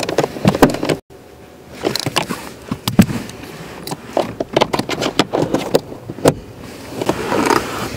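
Clicks, knocks and rustling of a plastic wiring connector and harness being handled and pushed back onto the blower motor resistor, with a short break about a second in.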